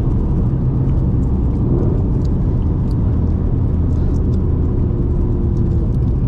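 Steady low rumble of road and tire noise inside the cabin of a 2004 Subaru WRX driving on newly fitted, larger tires.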